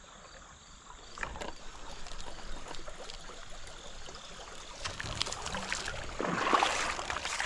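Creek water trickling, with scattered light ticks and a louder splash near the end.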